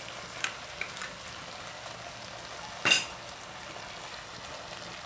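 Marinated beef and potato slices sizzling on a hot nonstick grill pan, a steady hiss. A few light clicks and one sharp clack near three seconds in come as the food is turned.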